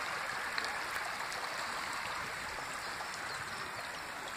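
Shallow stream flowing over stones: a steady rush of running water.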